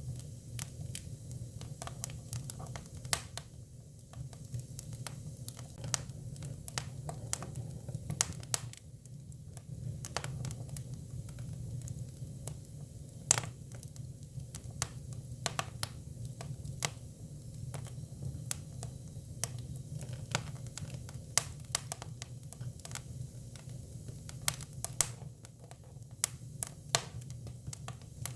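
Hinoki cypress firewood burning, crackling with irregular sharp pops over a steady low rumble.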